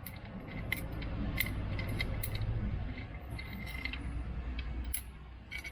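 Hand tools and steel bolts working on a motorcycle's exhaust and footrest mounts: light metallic clinks and ticks at irregular intervals over a low rumble.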